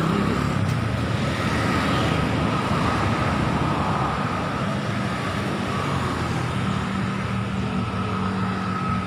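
Steady city road traffic: motorbike and car engines running along the street, with no break.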